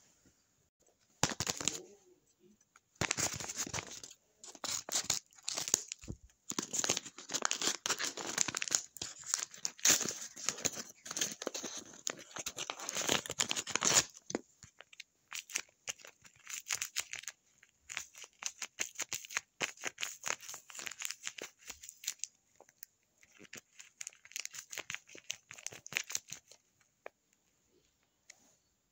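Paper rustling and crinkling as it is folded and handled, busy and loud for the first half, then softer and sparser after about 14 seconds, stopping shortly before the end.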